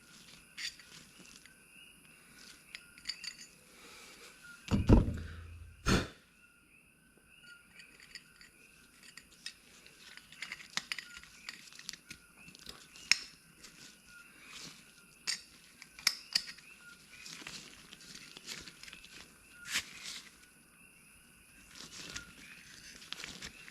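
Thread tap being turned by hand into cast aluminium: scattered small metallic clicks and clinks from the tap and tap wrench, with two louder knocks about five and six seconds in.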